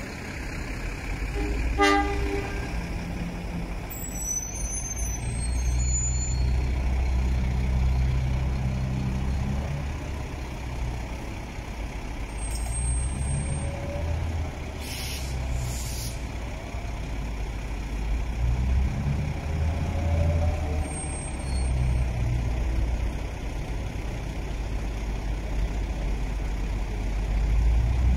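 Diesel locomotive engine running as it hauls a train slowly through a yard, a low drone that swells and eases several times. A brief sharp sound about two seconds in, and a few faint high squeals here and there.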